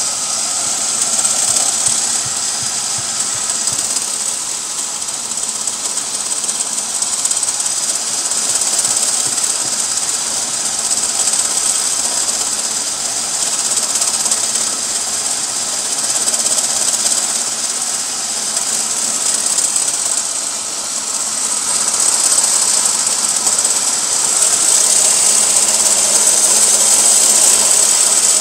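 Chevy Beretta's GM 3.1 V6 running with a continuous fast rattle over a steady high hiss, growing a little louder near the end. The owner traced the rattle to a failing AC compressor, which seized soon afterwards.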